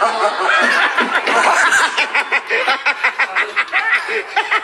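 A person laughing: voice sounds for the first two seconds, then a run of quick, even bursts of laughter, about five or six a second.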